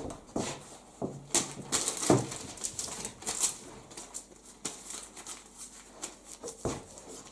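Newspaper crinkling and rustling in irregular crackles and scrapes as hands are rubbed with it to wipe off sticky fish slime.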